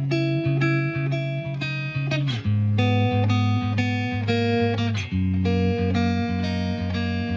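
Background music: guitar-led instrumental with plucked notes changing in a steady rhythm.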